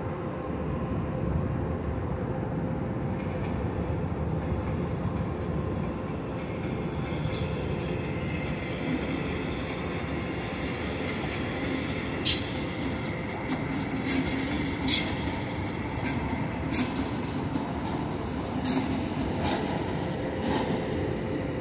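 CFL double-deck push-pull train hauled by an electric locomotive rolling steadily past over points. Sharp wheel clacks come from about halfway on, the loudest two about three seconds apart, and a high wheel squeal begins just before the end.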